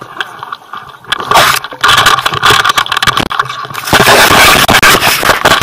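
Handling noise from a phone: loud scraping and rustling as its microphone is rubbed and covered. It starts about a second in and is loudest from about four seconds in.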